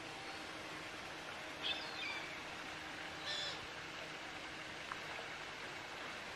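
Steady outdoor background hiss with two short, high bird calls, one just under two seconds in and another about a second and a half later.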